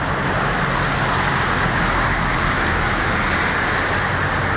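Steady road traffic noise, an even roar of passing vehicles with a low hum underneath.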